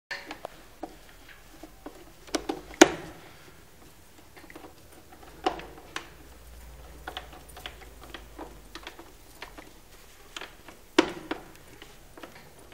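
Scattered sharp clicks and taps from hand tools and stiff copper wires being handled at an electrical distribution board, including red-handled wire pliers stripping a wire. The loudest click comes near three seconds in, and there are others about two and a half, five and a half and eleven seconds in.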